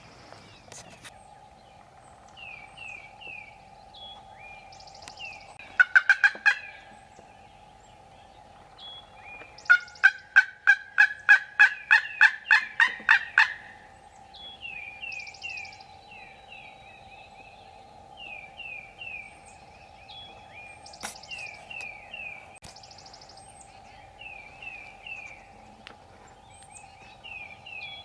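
A turkey yelping: a short run of about five loud yelps, then a few seconds later a longer run of about a dozen. Small birds chirp in short quick runs throughout, over a faint steady hum.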